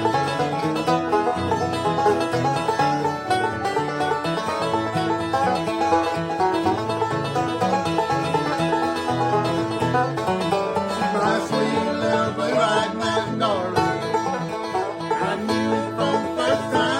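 Five-string banjo picking the instrumental kickoff of a bluegrass song, with guitar backing.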